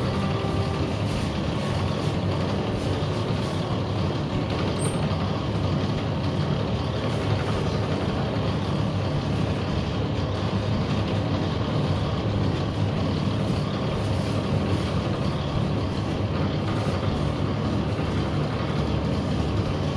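Motor of a powered noodle-making machine running steadily, a continuous low engine hum.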